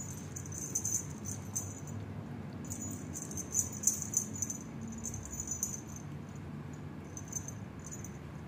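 A cat teaser wand toy with beads and feathers, shaken over a kitten, jingling in short high rattling bursts with brief quiet gaps between shakes.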